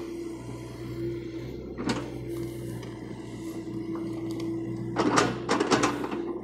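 John Deere excavator's diesel engine running steadily with a held whine. There is a single knock about two seconds in and a quick run of loud clanks near the end.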